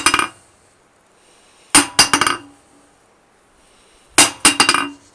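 A hammer let fall onto the face of a 55-lb Harbor Freight anvil, bouncing each time in a quick run of ringing clinks that come closer together and fainter: a fairly decent rebound. This happens twice, about two seconds apart, after the last clinks of an earlier drop at the start.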